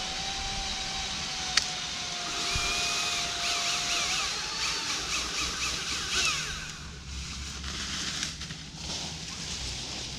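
Battery-powered chainsaw running with a steady whine and chain hiss for about six seconds, rising slightly in pitch just before it stops, then only faint background noise.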